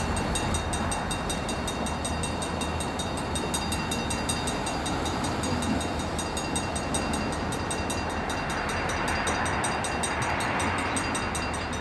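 Pan Am Railways EMD GP40 diesel locomotive 354 and a second unit running light toward the listener, their engines giving a steady, even drone.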